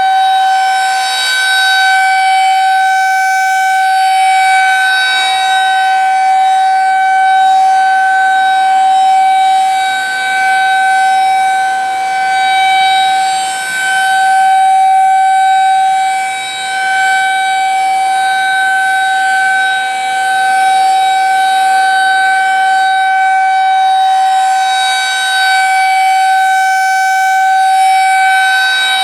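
Federal Signal 2001-SRNB rotating electromechanical outdoor warning siren sounding a steady tone at full speed during a test. The pitch holds steady while the loudness swells and fades every few seconds as the siren's horn turns toward and away from the listener.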